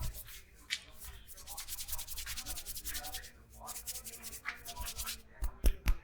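Hands rubbing briskly over hair and scalp in a head massage, a fast scratchy rustle. Near the end come three sharp smacks of hands.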